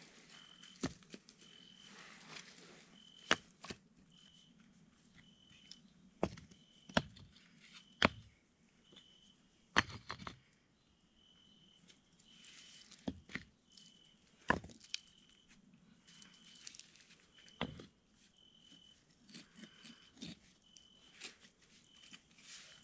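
Stone blocks being set down and knocked against each other while building a fireplace: about ten sharp clacks at irregular intervals, with dry leaves rustling under hands and knees. Behind it, an insect chirps steadily about every two-thirds of a second.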